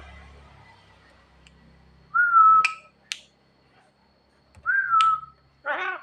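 Javan myna (jalak kebo) whistling: two clear half-second whistled notes, each starting a little higher and settling on one pitch, each followed by a sharp click. A short harsh call comes near the end.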